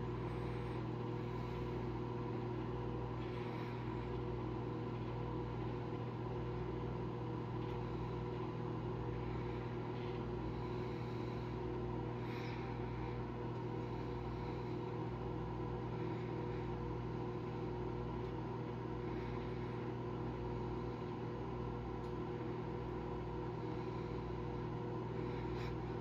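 Frigidaire over-the-range microwave oven running, a steady electrical hum with a faint low pulsing, while heating food in an aluminum tray with no arcing or sparking from the metal.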